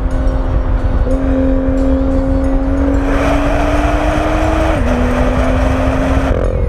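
Car engine pulling under load at road speed with a steady drone. Its pitch climbs slowly, then steps down a little past two-thirds through as it shifts up a gear. Road and wind rumble run underneath, with a rushing hiss in the second half that cuts off near the end.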